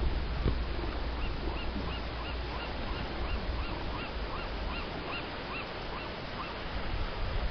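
An animal's short, arched, high-pitched calls, repeated about three times a second for some five seconds, over a steady wash of surf and wind noise. Two low thumps sound right at the start.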